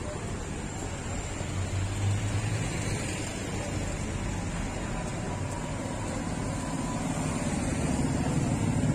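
Street traffic: cars and other motor vehicles driving past on a busy city street, growing louder near the end.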